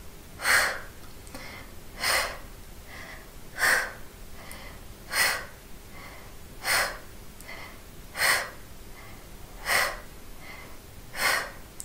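A woman's sharp exhales through the mouth, eight in all, about one every second and a half, with fainter breaths in between. Each exhale is timed with the effort of lifting the hips in a side plank.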